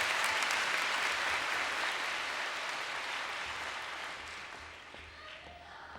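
Audience applauding after an acceptance speech, loudest at first and dying away over the next few seconds.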